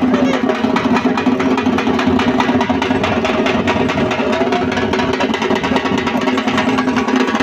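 Dhak drums beaten with sticks in a fast, unbroken rhythm, over a steady droning tone.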